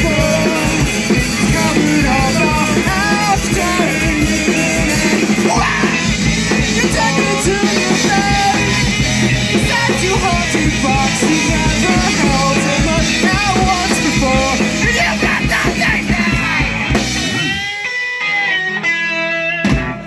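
A rock band plays live and loud: electric guitar, electric bass, drums and a male lead vocal. About three seconds before the end the full band drops out, leaving a few ringing, sustained notes and a voice as the song finishes.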